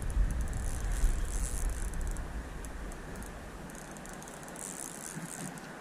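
Spinning fishing reel being wound in spells, a light rattling click from its mechanism, over a low rumble of wind on the microphone that dies down after a few seconds.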